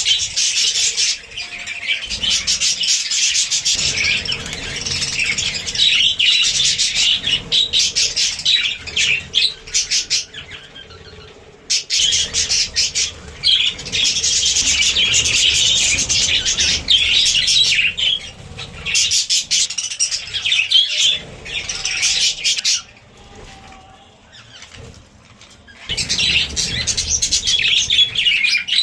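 Budgerigars chattering and chirping in a fast, continuous warble, with two brief lulls, about eleven seconds in and again for a few seconds past the twenty-second mark.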